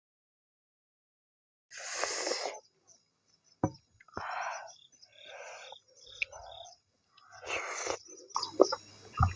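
Close-miked mouth sounds of eating maize dhido with nettle curry: airy slurps and sucking breaths, wet smacking and chewing, and sharp clicks, with a louder knock just before the end.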